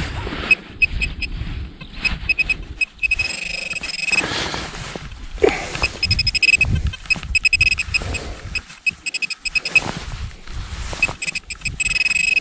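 Handheld metal-detecting pinpointer sounding off in a dig hole: a thin electronic beep that pulses quickly and at times holds as a steady tone, signalling metal in the loose soil. Hands rustle and scrape through the dirt underneath.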